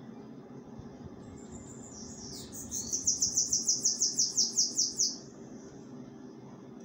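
Bananaquit singing: one high song that begins about two seconds in and runs into a fast string of about a dozen quick repeated notes, about six a second, cutting off after about three seconds. A steady low hum sits underneath.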